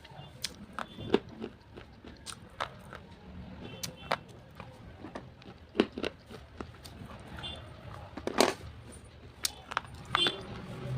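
Slate pencils being bitten and chewed: irregular sharp crunches and snaps, the loudest about eight and a half seconds in.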